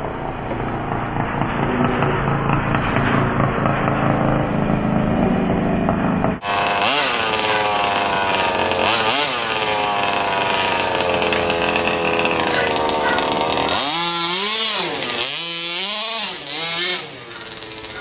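29cc two-stroke gas engine of a 1/5-scale HPI Baja 5T clone RC truck running and being revved, with the pitch rising and falling repeatedly near the end as the throttle is worked.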